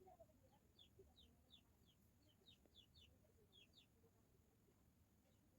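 Near silence, with faint bird chirps in the background: short falling chirps, several a second, in loose clusters.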